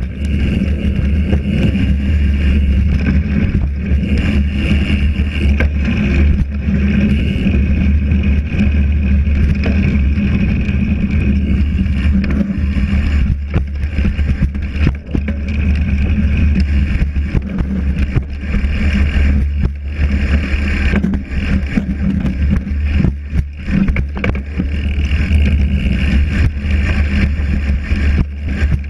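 Mountain bike riding fast over a rough, leaf-covered dirt trail, heard through a bike-mounted camera: a steady heavy rumble of wind and tyre noise, with scattered knocks and rattles from the bike over bumps.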